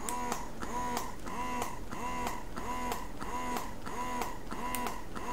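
Youha wearable breast pump's motor running its suction cycle: a whirring hum that rises at the start of each stroke and falls away at the end, repeating evenly about three times every two seconds.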